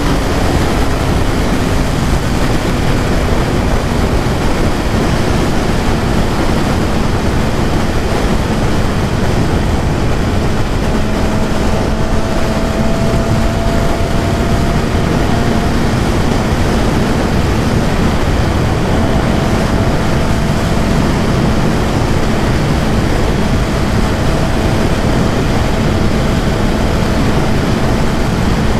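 BMW S1000RR inline-four engine holding a steady tone at constant cruising speed, under heavy, even wind rush on the rider's microphone.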